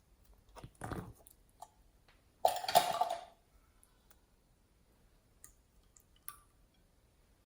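Slime being squished and worked by hand: scattered small clicks and pops, with one louder burst of squishing about two and a half seconds in.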